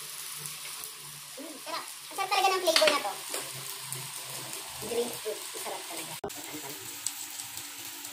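Samgyeopsal pork belly and shrimp sizzling on a grill pan over a portable gas stove, a steady hiss. A short burst of voice about two to three seconds in is the loudest moment.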